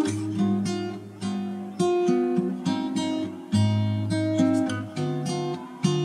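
Background music: acoustic guitar playing plucked and strummed chords, each note ringing and dying away.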